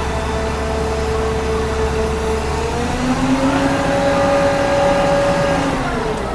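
Diesel engine of heavy construction machinery running steadily, then revving up about three seconds in, holding at higher revs, and dropping back near the end.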